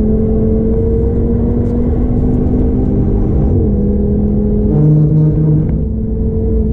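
Stage 2 tuned 2013 Audi TT RS's turbocharged 2.5-litre five-cylinder engine accelerating hard at high speed, heard from inside the car. Its note climbs slowly and dips once about three and a half seconds in, over steady wind and road noise.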